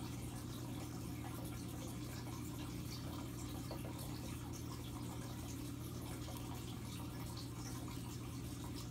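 Aquarium filter running: a low steady hum with water trickling and bubbling at the surface.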